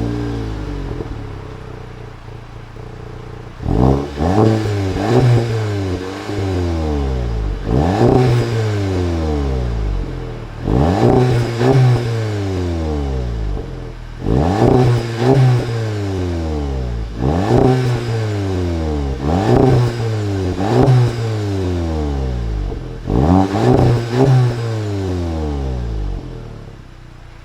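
Volkswagen Golf GTI's turbocharged four-cylinder engine heard through its twin exhaust pipes: it idles for a few seconds, then is blipped about eleven times, some in quick pairs, each rev rising sharply and falling back to idle.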